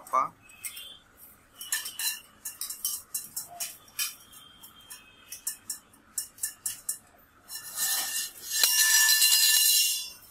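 Stainless steel tubes of a clothes rack clinking and tapping against each other as they are handled. About eight seconds in comes a louder, sustained metal clatter with a ringing note as the rods knock and slide together.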